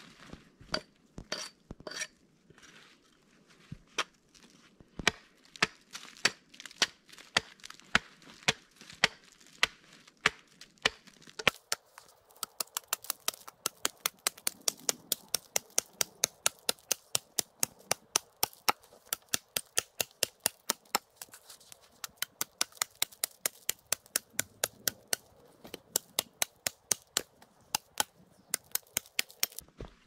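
Hatchet chopping into an upright log to split it. The strikes come irregularly at first, about one or two a second, then from about a third of the way in settle into a quick, steady run of about three sharp chops a second.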